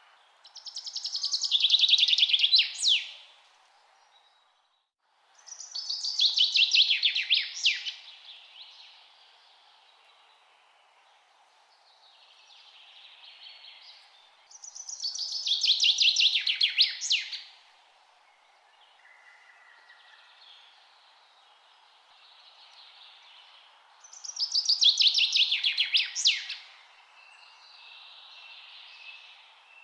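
A songbird repeats the same loud song phrase four times, about every nine seconds. Each phrase is a rapid run of notes that falls in pitch over about two seconds and ends in a quick flourish. Fainter birdsong and a steady low hiss continue underneath.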